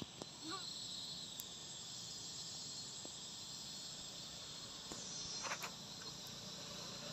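Faint, steady, high-pitched insect chorus, with a short faint chirp about half a second in.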